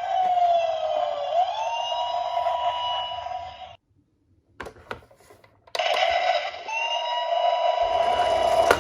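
Several electronic toy sirens from police-car and ambulance minicars sounding together, one wailing down and then back up in pitch about a second in. They cut out for about two seconds near the middle, with a few clicks, then start again.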